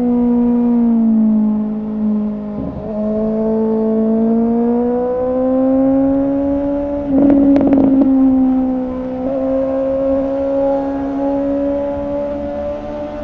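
Suzuki GSX-S750's inline-four engine running through a Yoshimura R11 exhaust with the dB killer removed, under way. The engine note drops in pitch early, breaks briefly about three seconds in, then climbs slowly and holds steady, with a short rush of noise around the middle.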